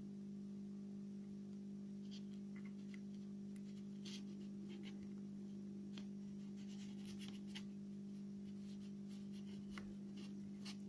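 Faint scratching and small clicks of thin fishing line being worked into a knot between the fingers, scattered irregularly, over a steady low hum.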